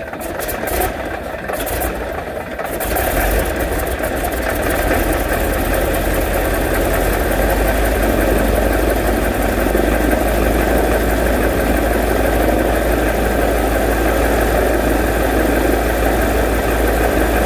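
A Boeing Stearman PT-17's radial engine being started with an inertia starter: it turns over unevenly with irregular knocks for about three seconds, then catches and runs steadily.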